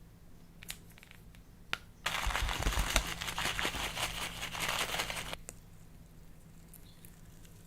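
Slime being squeezed and worked by hand, giving a dense crackling run of tiny pops for about three seconds, after two single clicks.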